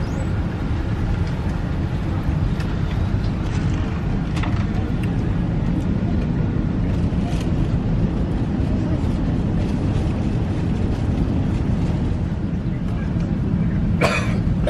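Steady low hum of an Airbus A380's cabin while it is parked at the gate, with a few light clicks and a short clatter near the end.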